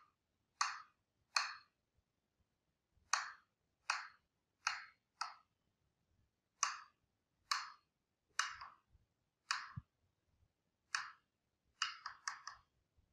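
Mallet striking the handle of a carving gouge as it cuts into a wooden relief panel: sharp single knocks, mostly about a second apart with short pauses, then a quick run of four taps near the end.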